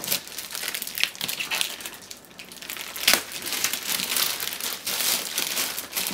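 Crinkling and rustling of a boxed action figure's cardboard and plastic packaging being handled and opened, with irregular crackles and a sharp click about three seconds in.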